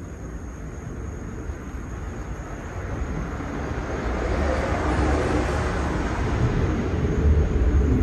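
44-inch Hunter Dominion ceiling fan running, its blade draft rushing over the microphone as a steady low rumble and hiss that grows steadily louder.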